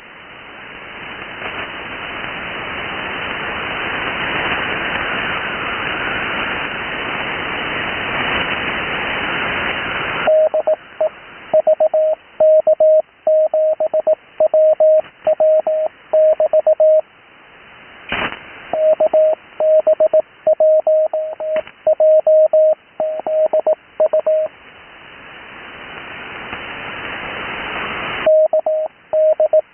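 Morse code (CW) received over a radio: band hiss swells for about ten seconds, then a steady single tone keys out callsigns at speed, sent without Farnsworth spacing, with a short break and a click in the middle. The hiss returns near the end before the keying starts again.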